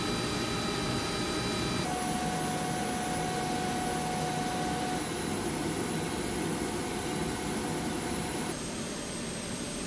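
Steady aircraft engine noise heard from inside a cargo plane's hold, with a constant high whine over it. The mix changes abruptly about two seconds in and again near the end.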